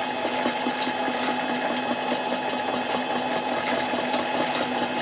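7x10 mini lathe running at a steady speed with a steady motor whine, turning a Husqvarna 372 chainsaw cylinder while the cutting tool takes a light cut, with faint irregular ticks over it. The cut sounds even, which the machinist hears as good.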